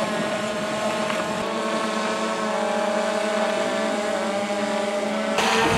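A steady motor drone: an engine running at constant speed, its hum holding one pitch with a slight waver, changing suddenly near the end.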